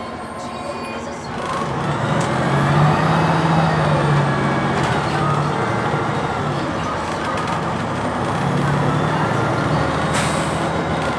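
Cummins Westport ISL-G natural-gas engine of a Blue Bird TX4 bus under way, heard from inside the bus; it grows louder about a second and a half in as it pulls, and a high whine rises and falls twice. A short hiss comes near the end.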